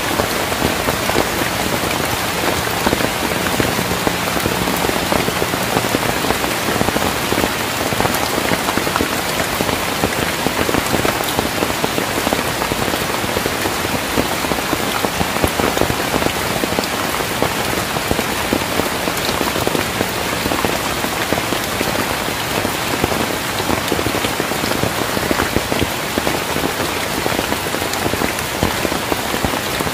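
Heavy rain pouring steadily: a dense, even hiss of countless drops with scattered sharper drop hits.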